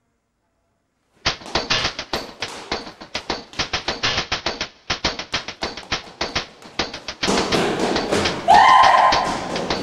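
Fast footsteps running on concrete stairs, a quick uneven patter of sharp knocks starting about a second in. Near the end they thicken into a louder, denser clatter with a sudden held note.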